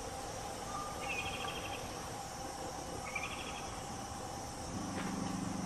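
Forest ambience: a steady high hiss of insects, with two short trilled chirps, one about a second in and one about three seconds in. A low hum comes in near the end.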